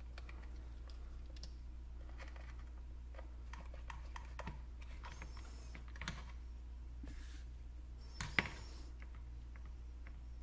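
Small, irregular clicks and scrapes of a hand screwdriver driving screws into the plastic housing of an LED camping lamp as it is put back together, with one sharper click a little after eight seconds in.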